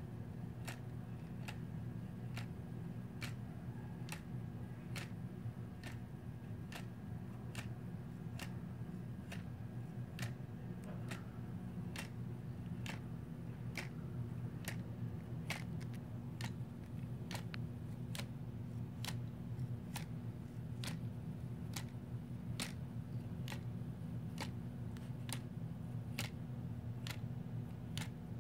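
Laser-cut wooden Galileo escapement clock running: the escapement gives a crisp, evenly spaced tick a little more than once a second as the pendulum swings and the pin wheel steps on. A steady low hum lies underneath.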